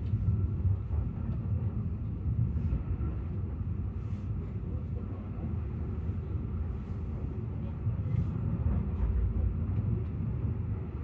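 Fløibanen funicular car running downhill on its rails, heard from inside the car as a steady low rumble with a few faint clicks.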